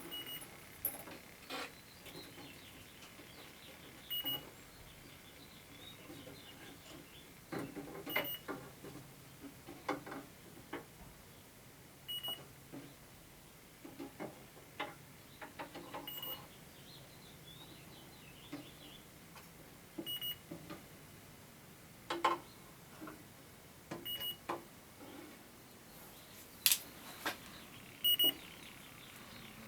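Electronic refrigerant leak detector giving a short high beep about every four seconds, its steady idle rate, showing no leak found. Irregular clicks and knocks sound in between as the probe is handled around the unit.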